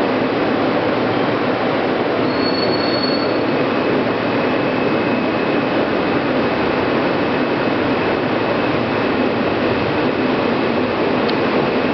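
R160A subway car heard from inside while running through the tunnel: a steady rumble of wheels on rail and running gear. A thin wheel squeal sounds briefly about two seconds in, and a fainter one holds through the rest.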